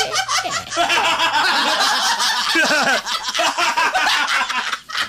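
Several people laughing and snickering over one another, with a brief pause near the end.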